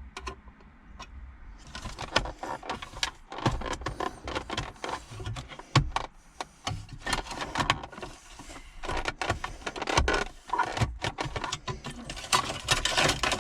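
Hand work on a car's metal radio mounting cage in the dashboard: a pick prying and bending up its sheet-metal tabs. From about two seconds in there is dense, irregular clicking, scraping and rattling of metal against metal and plastic.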